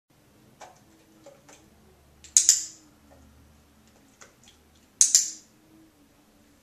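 A training clicker pressed twice, about two and a half seconds apart, each a sharp two-part click-clack marking the dog's behaviour for a treat. Fainter small ticks and clicks come in between.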